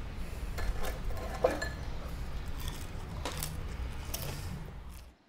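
Room ambience: a low steady hum with scattered light clinks and taps, like dishes or cutlery, fading out near the end.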